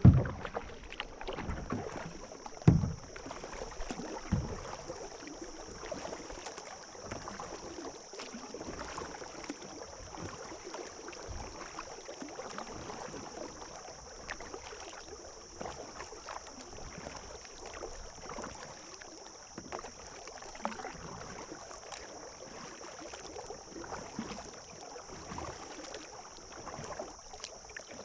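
Water lapping and splashing against a kayak, with three loud thumps in the first five seconds, over a steady high hiss.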